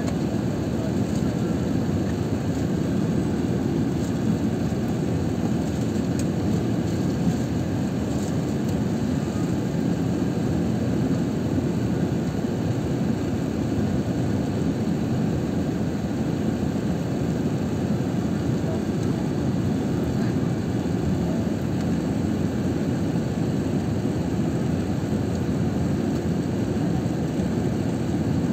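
Steady airliner cabin noise in flight: engine and airflow noise heard from inside the cabin as an even, unchanging low rumble.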